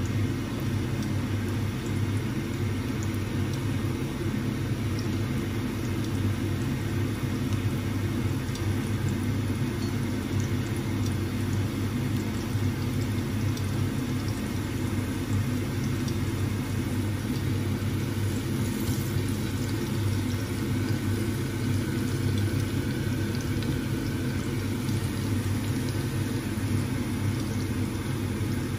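Diced red onion frying in hot oil in a pan: a steady sizzle with faint crackling, over a constant low rumble.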